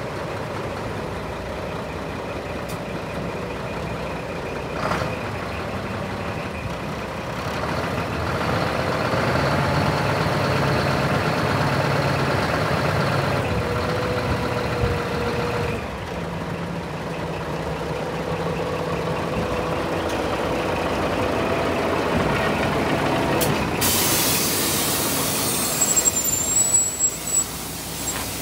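Scania R420 tipper truck's six-cylinder diesel engine running, picking up speed about eight seconds in as the hydraulics raise the tipper body, with a steady tone over the engine sound. Near the end a loud hiss of released air comes in.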